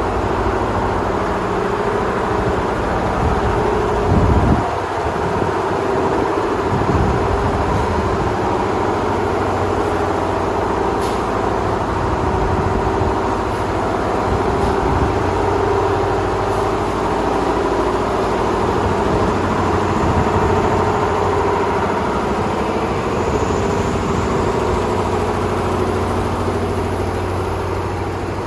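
Honeycomb paper core production machine running steadily, a continuous mechanical hum with a louder low thump about four seconds in and a few faint ticks later on.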